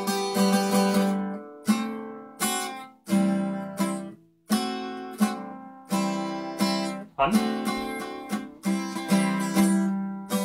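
Background music: an acoustic guitar tune of plucked and strummed notes that ring and fade between strokes.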